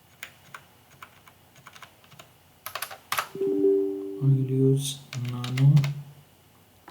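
Computer keyboard typing: scattered key clicks as a terminal command is typed. About halfway through, a man's drawn-out hesitation sounds take over, held like "ummm".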